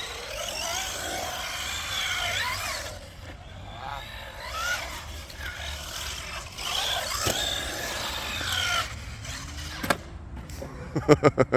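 Electric RC monster truck's motor whining, its pitch rising and falling as the throttle is worked. A sharp knock comes about ten seconds in, then a quick run of clatters near the end.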